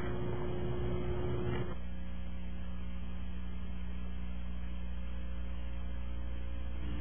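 Steady electrical mains hum over a low hiss. A little under two seconds in, a faint higher steady tone stops and the hum changes slightly.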